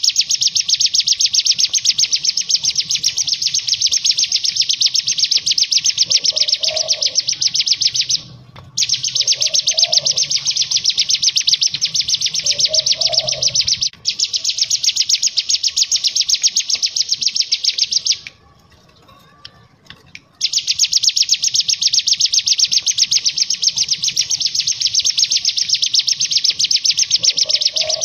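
Hill prinia (ciblek gunung) singing its rapid-fire 'ngebren' trill: long runs of very fast, evenly repeated high notes, each lasting several seconds. There are brief breaks and one longer pause about two-thirds of the way in.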